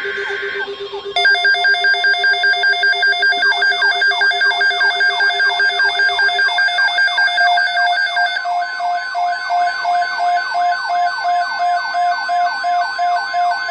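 Emergency alert tones sounding together and starting abruptly about a second in: a loud pulsing beeping alarm over a fast, repeating rise-and-fall wail like a siren. A steady tone joins about eight seconds in.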